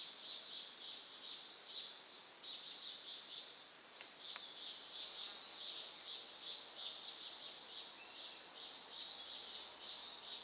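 Forest background of high-pitched chirping, pulsing about three times a second without a break, with two faint clicks about four seconds in.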